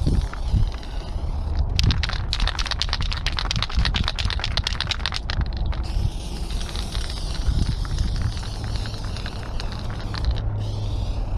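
Aerosol spray paint can hissing as paint goes onto the wall, broken for about four seconds near the start by a fast run of sharp rattling clicks. Wind rumbles on the microphone throughout.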